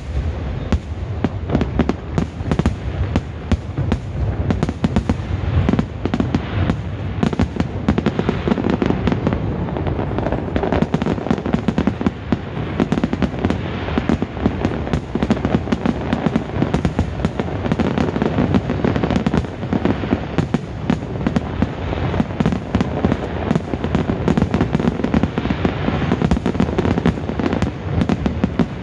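A fireworks display going off as a dense, continuous barrage of bursts, many bangs a second with no pause.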